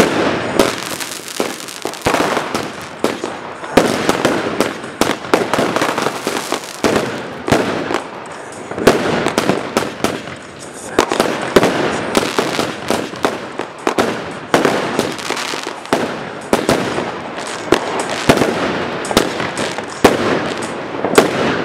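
Fireworks rockets bursting and crackling in a dense, unbroken run of bangs, with louder reports every few seconds.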